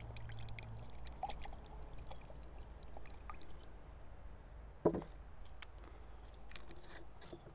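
Red wine vinegar poured faintly from a bottle into a measuring cup. About five seconds in there is a single short knock as the cup is set down on the wooden table.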